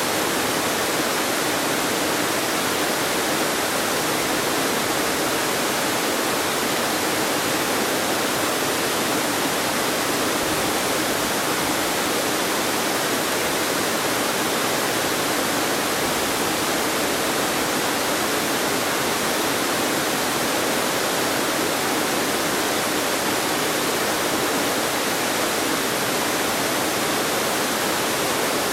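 Waterfall cascading over rock ledges: a steady, unbroken rush of falling water.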